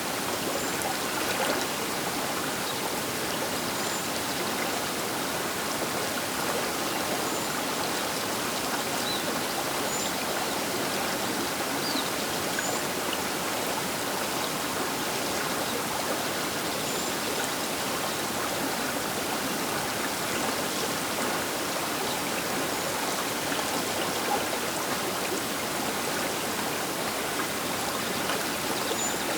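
The Baker River's water rushing past its bank: a steady, even rushing noise with no pauses.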